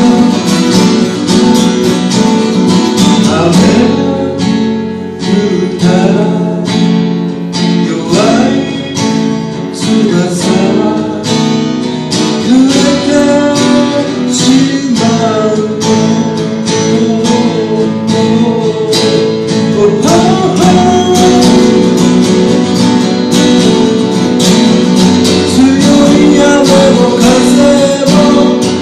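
Two acoustic guitars strummed and picked together while a man sings a Japanese folk song, live and unamplified.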